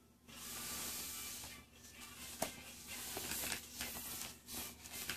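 Rustling and rubbing noise from a toddler shifting about and getting up on a play mat. A few light clicks from the toy car he handles come through it.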